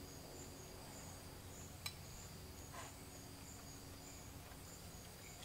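Faint insects chirping in an even rhythm, about three chirps a second, with one soft click about two seconds in.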